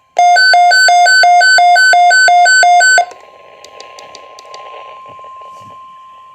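A weather alert radio's alarm going off: a loud electronic beep alternating between two pitches about three times a second, set off by the weather radio's alert tone. It cuts off suddenly after about three seconds, leaving a faint hiss with a few light clicks, while a faint steady alert tone carries on underneath.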